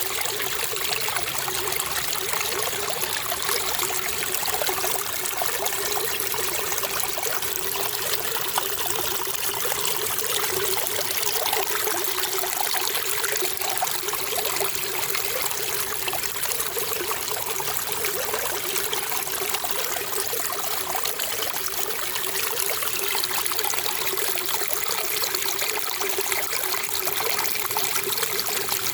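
Flowing water, running steadily without a break.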